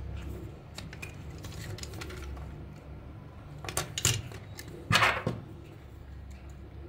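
Hard plastic toy parts being handled and shifted on a work mat: light clicks and rustles, then a few sharper plastic clacks about three and a half to four seconds in, the loudest a knock around five seconds in. A low steady hum runs underneath.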